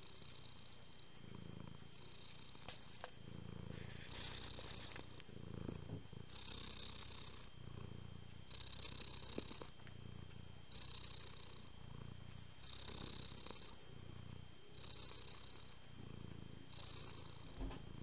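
Cat purring in a steady rhythm, deeper and hissier phases alternating about once a second, with a few light taps and clicks.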